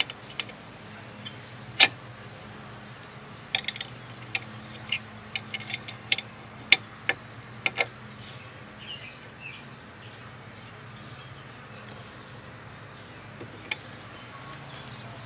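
Sharp, irregular clicks and knocks of a metal LED pod light and its mounting bracket being handled and fitted together by hand, thick through the first half and then stopping, leaving a steady low hum.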